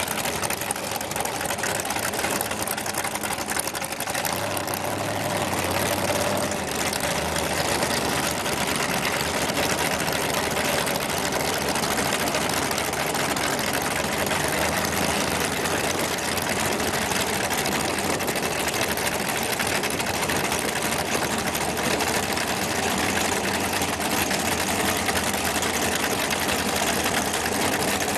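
Chevrolet 409 V8 in a front-engine dragster idling loudly on open headers, a fast, even chatter that holds steady throughout with no revving.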